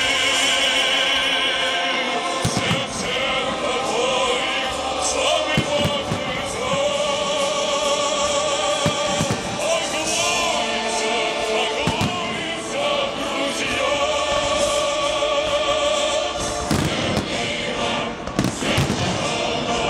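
Choral singing with musical accompaniment, over scattered bangs of aerial firework shells bursting in a pyrotechnic display.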